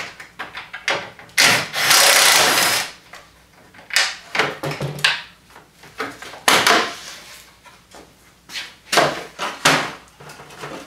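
A power driver runs in a burst of about a second and a half, backing out a T30 Torx screw. Shorter bursts, clicks and rattles of handled parts follow.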